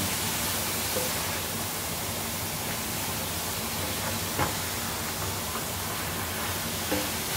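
Shredded zucchini sizzling steadily in an electric skillet while a silicone spatula stirs it, with a few light taps of the spatula against the pan.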